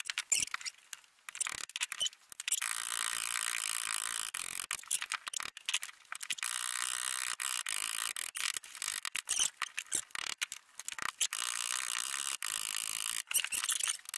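Hammer taps on copper boat nails and roves being riveted up against a dolly, heard as scattered sharp clicks over a steady high hiss that keeps cutting in and out.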